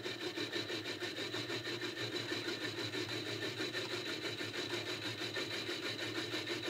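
An end mill on a milling machine cutting across the port face of a cast iron Stuart S50 steam engine cylinder casting. It makes a steady, even grinding over a faint high whine from the running spindle.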